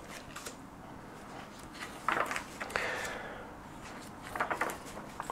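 Paper pages of a large, heavy hardcover book being handled and turned. There is a brief rustle about two seconds in, a soft swish of a page just under three seconds in, and a few light knocks and rustles near the end.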